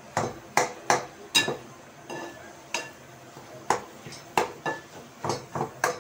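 Steel spoon knocking and scraping against a cooking pot while stirring minced meat: about a dozen irregular metallic clinks with brief ringing.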